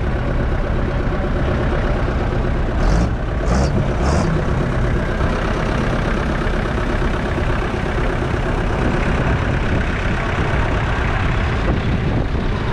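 1961 Fordson Super Major's 3.6-litre four-cylinder diesel engine idling steadily. About three seconds in, three short hisses come in quick succession.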